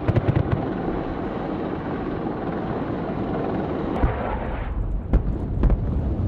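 AH-64 Apache helicopter noise, with a short burst of rapid gunfire at the start and a few sharp bangs near the end.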